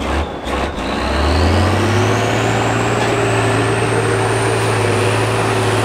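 Diesel engine of a Tatra six-wheel-drive trial truck revving up about a second in and then held at high revs, with a thin high whine rising alongside it.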